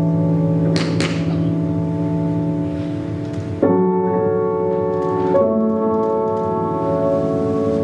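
Music of held, organ-like chords that shift to new chords twice. About a second in, a couple of sharp tap-shoe strikes on the floor are heard, with a few fainter taps later.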